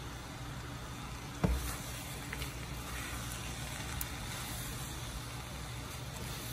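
Pancit noodles and vegetables cooking in a pan: a steady low rumble with faint sizzling, and one sharp knock about a second and a half in.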